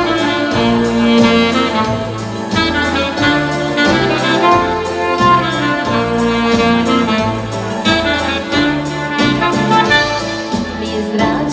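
Live dance band playing an instrumental passage: saxophone and trumpet carry the melody over keyboard and a steady beat.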